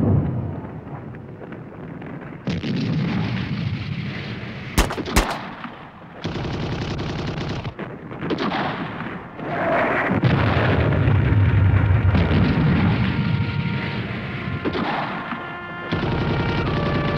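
Gunfire: two sharp cracks close together about five seconds in, over stretches of low rumbling booms that start and stop abruptly.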